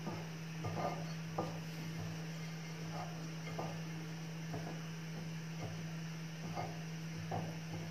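Hands rubbing and tossing shredded kunafa dough to work melted clarified butter into the strands: soft, faint rustles about once a second, over a steady low hum.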